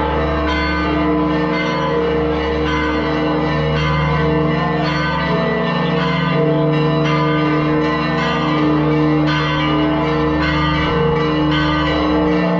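Church bells pealing, struck in quick succession, their ringing tones overlapping in a continuous peal.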